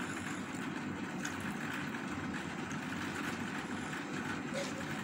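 A steady low rumble, unchanging throughout.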